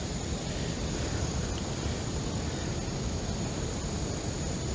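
Steady low outdoor background rumble with a thin, steady high-pitched whine above it, and no distinct event.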